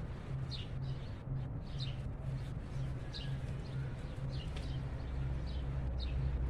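Small birds chirping: short, high, falling chirps repeated about once or twice a second, over a low steady background hum.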